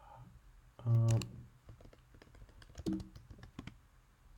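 Typing on a computer keyboard: scattered quick keystroke clicks, with a short hum from a voice about a second in.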